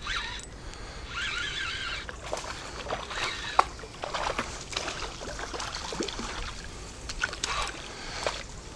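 A hooked perch splashing and sloshing at the pond's surface as it is reeled in on ultra-light tackle, with many scattered short clicks.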